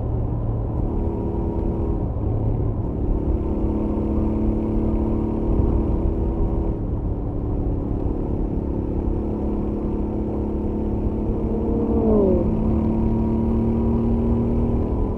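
Royal Enfield Interceptor 650's stock parallel-twin engine running at a steady highway cruise, with wind rumble on the helmet-mounted microphone. The engine note shifts in pitch a few times, and about twelve seconds in a brief falling tone sweeps down.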